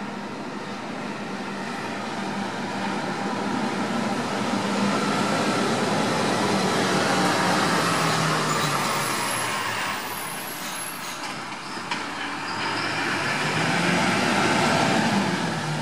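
Rain with traffic going by on wet road: a hiss that swells over several seconds and fades, twice, over a low engine hum.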